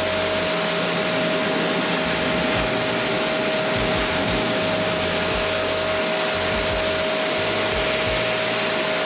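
A motor-driven machine running steadily: a constant rush of air with a steady whine, and some uneven low rumbling underneath.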